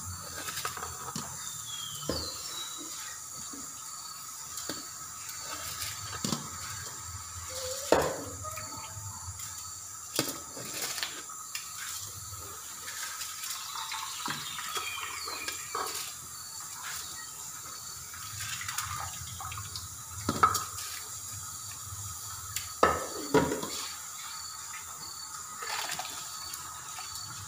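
Soaked rice and water tipped from a steel plate into a pot of boiling water, with water splashing and a few sharp metal clinks of plate against pot.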